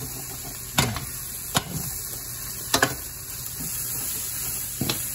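Sliced mushrooms sizzling in oil and butter in a stainless steel sauté pan while a metal spoon stirs them, clinking and scraping against the pan several times.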